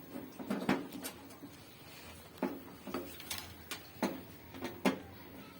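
Irregular sharp clicks and knocks of hands and tools working on a gas heater's casing as it is being opened up.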